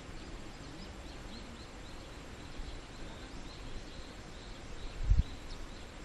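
Outdoor ambience: a steady hiss with a quick run of faint, high chirps repeating several times a second, and a sudden low thump about five seconds in.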